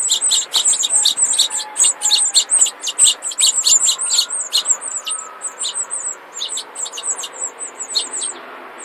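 Four house finch nestlings begging for food: a rapid stream of short, high, thin peeps, several a second, that thins out over the last few seconds.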